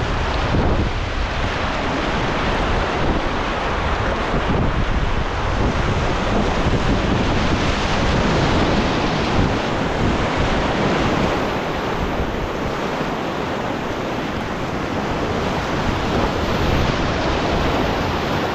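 Rushing whitewater of river rapids, a steady loud noise, with wind buffeting the microphone.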